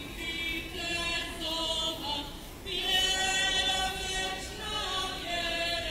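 A choir singing a slow Orthodox hymn, voices holding long notes, with a brief pause and a new phrase starting a little under three seconds in.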